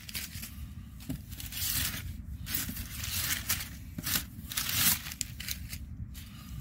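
Crumpled brown kraft packing paper being pulled out of a cardboard shipping box, crinkling and rustling in short irregular spells, one after another.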